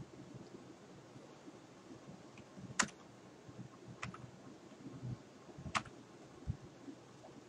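Computer keyboard being typed on slowly: a few scattered key clicks a second or so apart, with a couple of duller knocks, over a faint hiss.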